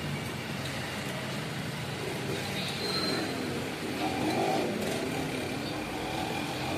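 Steady motor-vehicle engine and road-traffic noise, swelling a little near the middle.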